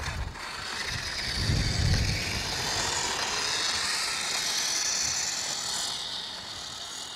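A WPL D12 RC truck's 7,700 kV brushless motor running at full throttle on a 2S battery, a high whine with tyre noise. The loudest moment is a low rumble about two seconds in, and in the second half the whine slowly drops in pitch and fades.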